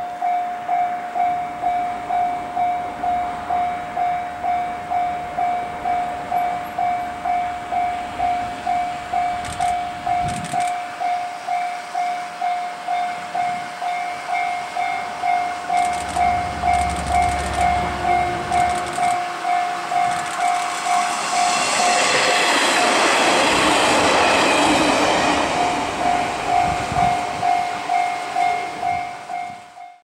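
A JR KiHa 40 series two-car diesel railcar set approaches and passes, loudest about 22 to 26 seconds in as its engines and wheels go by, then fades. Under it, a level crossing warning bell rings steadily about twice a second throughout.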